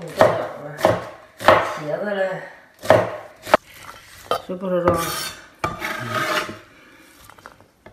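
A few sharp knife chops on a wooden cutting board as green beans are diced. Then diced green beans rustle and clatter as a hand scoops and tosses them in a steel bowl.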